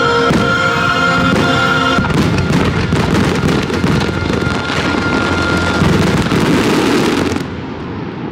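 Fireworks finale: orchestral show music with shells bursting, then from about two seconds in a dense barrage of rapid overlapping bangs and crackle that cuts off sharply near the end.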